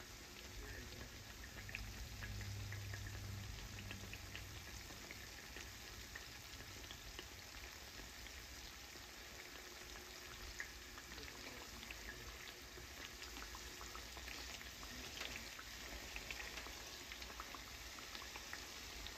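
Hot oil sizzling and crackling faintly around chimichangas deep-frying in a pan, with scattered small pops. A low hum rises a little for a couple of seconds near the start.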